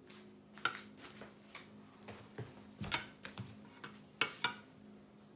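Light clicks and knocks of tableware being handled around a pan of lentils and bowls of rice, about ten irregular taps, the loudest pair a little past four seconds in. A faint steady hum runs underneath.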